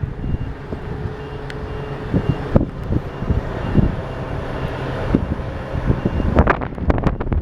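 Strong wind buffeting the microphone in irregular gusts and thumps, over a vehicle's reversing beeper sounding a short high beep again and again and a steady engine hum.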